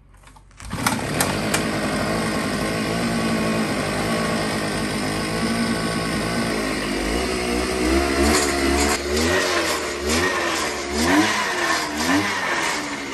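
Gas-powered ice auger engine coming to life abruptly under a second in, then running steadily, and revved up and down several times in the second half.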